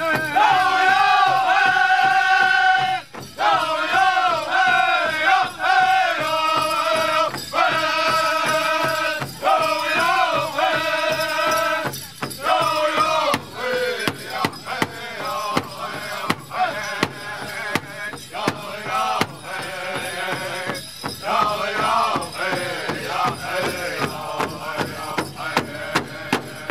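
Powwow drum group singing an intertribal song in high, sustained voices over a steady beat from many drumsticks on one large shared drum. The singing is loudest in the first half; after that it drops back and the drumbeats stand out more.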